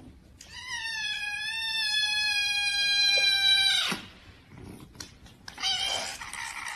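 A kitten meowing. One long, high, steady meow of about three and a half seconds, then a shorter, fainter meow near the end.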